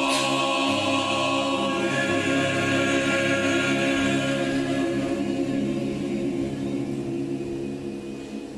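Church choir holding a sustained final chord that fades away over the last few seconds.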